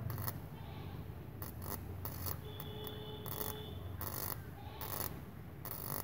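Microwave oven transformer high-voltage rig giving a low mains hum, with about eight short, sharp crackles at irregular intervals.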